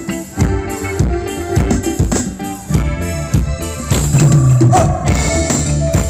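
Live band playing Thai ramwong dance music, with a steady drum-kit beat of about two strokes a second.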